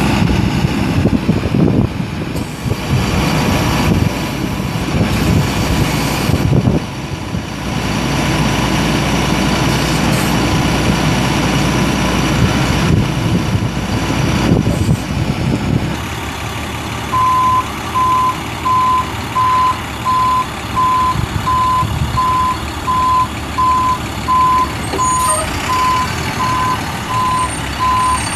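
A truck's International DT466 turbo diesel engine runs steadily. A little past halfway its backup alarm starts beeping, about once a second, the sign that the truck is in reverse.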